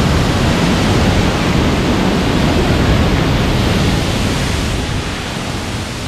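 Waterfall pouring into a rock pool: a loud, steady rush of falling and churning water, a little quieter near the end.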